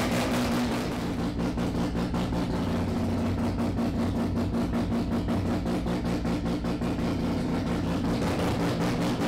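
Mazda 13B two-rotor rotary engine idling steadily with an even, pulsing exhaust note, left running to come up to operating temperature.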